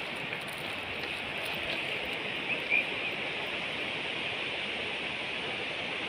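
Steady outdoor nature ambience, an even hiss, with a couple of short high chirps about two and a half seconds in.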